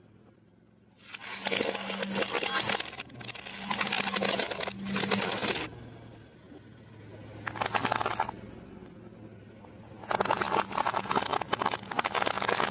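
A car tyre slowly crushing hard plastic toys and brittle snack sticks: several bursts of crackling and cracking, each one to a few seconds long, with quieter gaps between.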